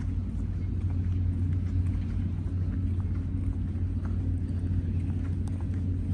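Steady low mechanical hum and rumble, unchanging throughout.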